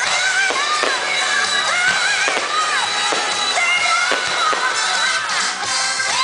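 Song with a singing voice, with sharp bangs of fireworks bursting among it several times.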